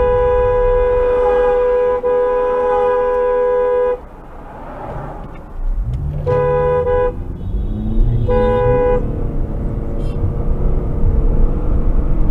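Car horn blown in one long, steady blast, broken briefly about two seconds in and ending about four seconds in. Then two short honks about two seconds apart, over traffic noise.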